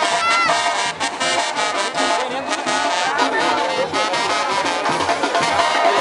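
Brass band music with trumpets and trombones playing over a steady beat.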